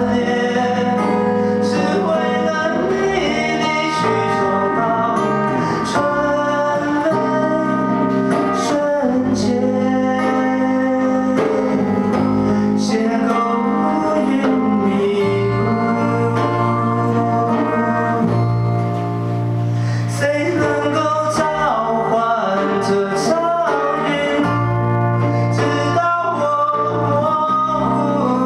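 A man singing a slow song through a microphone over instrumental accompaniment, holding long notes with vibrato.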